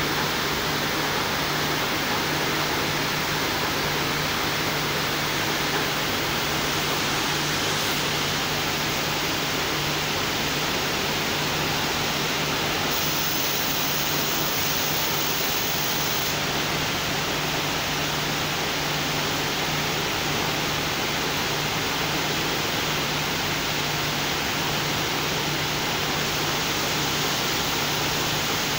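Steady running noise of circular sock-knitting machines in a knitting mill: a dense, even hiss with a low hum underneath. A sharper high hiss joins for a few seconds around the middle.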